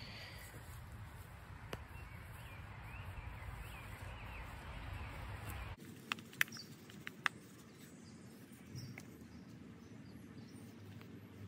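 Quiet garden ambience: birds chirping faintly over a low background rumble. About halfway through the background changes abruptly, and a few sharp clicks and taps follow from handling during the transplanting.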